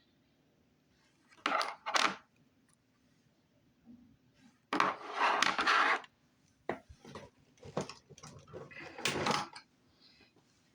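Small plastic slime containers and their packaging being handled: a few light clacks and knocks, with a longer rustle of packaging in the middle.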